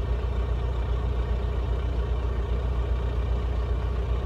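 Volvo semi tractor's diesel engine idling steadily, a low even rumble, while a forced DPF regeneration is being requested.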